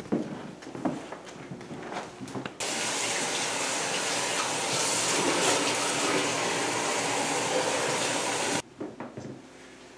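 Bathroom tap running steadily into a sink while hands are washed under it; the rush of water cuts in suddenly about two and a half seconds in and cuts off suddenly near the end. Before it come a few scattered knocks.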